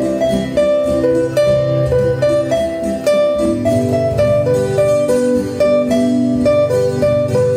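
Background guitar music: a plucked melody of quick single notes over a lower accompaniment.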